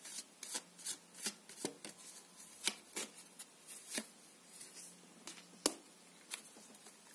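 A tarot card deck being shuffled and handled by hand: a string of irregular sharp card snaps and flicks, about one or two a second. A louder snap comes about two-thirds of the way through, as a drawn card is laid on the table.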